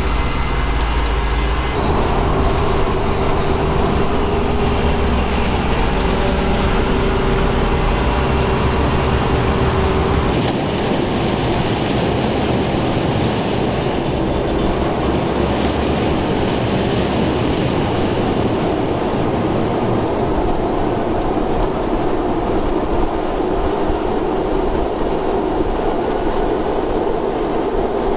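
Corn-hauling truck running across a harvested field, a steady engine drone with rattling and clatter. About ten seconds in it changes to a rougher, noisier rumble.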